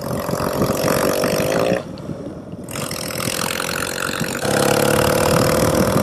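Yamaha XS650 chopper's air-cooled parallel-twin engine under way, revs climbing, then falling off about two seconds in as the throttle closes for a gear change. It pulls again, louder, about four and a half seconds in.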